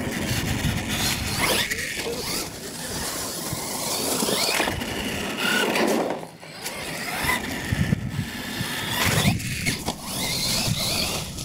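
Losi LMT radio-controlled monster truck running on a 2S battery: its brushless electric motor and gears whine, rising in pitch several times as the throttle is opened and eased, over a steady noise of tyres on the ground. The sound drops briefly about six seconds in.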